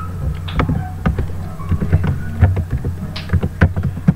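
Irregular taps and clicks over a steady low hum.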